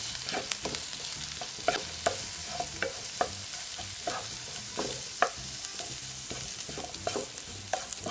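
Spatula stirring and tossing boiled Chinese potatoes (innala) and leeks in a non-stick frying pan. Irregular scrapes and light knocks, two or three a second, run over a faint steady sizzle of oil on a lowered flame.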